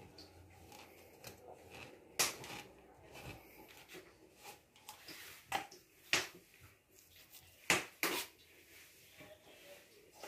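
A plastic jar lid used as a cutter pressing and tapping on a wooden board while soft dough is cut and lifted: a few sharp taps spread through, with faint handling sounds between.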